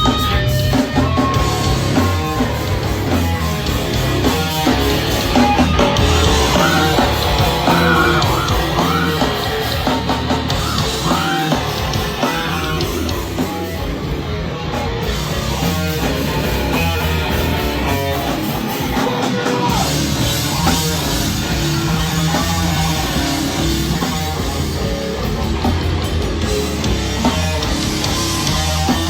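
Loud rock music with drums and guitar, heavy and punk-like, playing steadily throughout.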